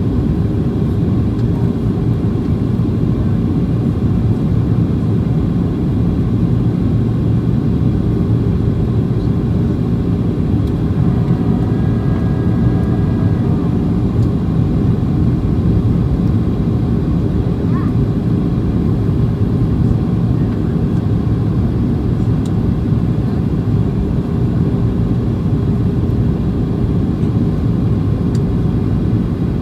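Steady low rumble inside the cabin of a Boeing 737-800: engine and airflow noise from its CFM56-7B engines, heard from a seat over the wing.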